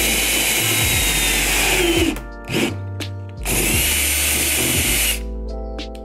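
Cordless drill boring holes through a car's sheet-metal trunk lid with a steady whine. It stops about two seconds in, gives a brief blip, runs again for about a second and a half, and stops a second before the end. Background music with steady notes is heard in the gaps.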